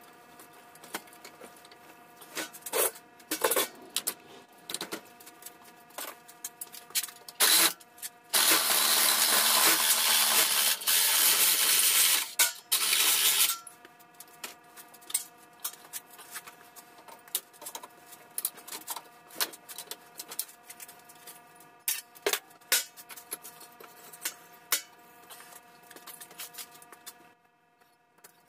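Metal clanks and rattles from handling an aluminium-fin, copper-tube air-conditioner coil. About eight seconds in, a power miter saw with a carbide-tipped blade cuts through the coil for about five seconds and then stops.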